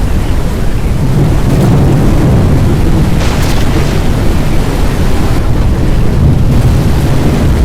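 Violent wind at the edge of a tornado buffeting the microphone: a loud, continuous low rumble, with a brief hiss about three seconds in.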